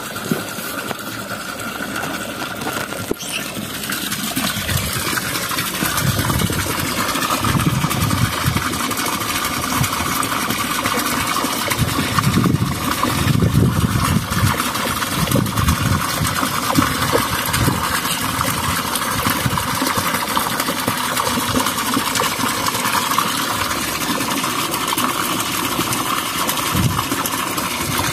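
A small engine running steadily, with a constant whine, getting a little louder over the first few seconds.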